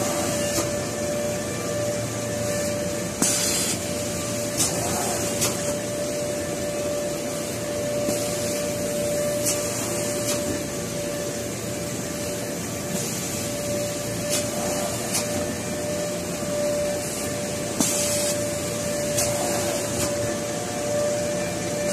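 Garbage bag sealing and cutting machinery running: a steady mechanical hum with a constant whine, irregular sharp clicks, and short bursts of hissing about three seconds in and near the end.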